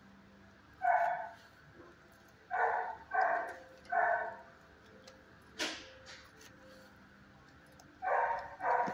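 Dog barking in short single barks: one about a second in, three in quick succession around three to four seconds in, and two more near the end. A single sharp clank comes midway.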